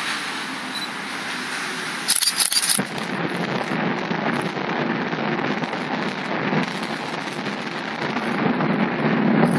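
Explosive demolition charges on a stadium roof canopy going off in the distance: a short salvo of quick crackling blasts about two seconds in, followed by a rolling rumble that swells toward the end.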